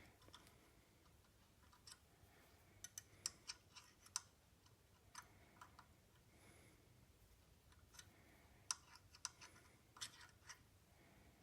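Faint, irregular clicks and ticks of a 1/4-20 hand tap being turned slowly by hand, cutting threads into a drilled hole in metal.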